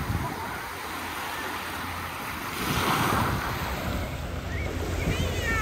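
Small waves breaking and washing up a shingle beach, with wind rumbling on the microphone. A wave swells louder about three seconds in.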